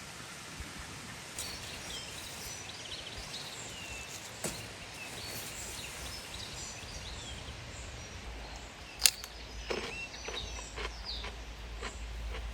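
Outdoor ambience: a steady hiss with small birds chirping throughout. A single sharp click about nine seconds in is the loudest sound, followed by a few lighter knocks and a low rumble.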